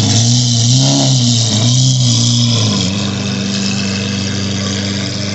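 Lamborghini engine revved in two or three quick blips, its pitch rising and falling, then settling to a steady idle about three seconds in.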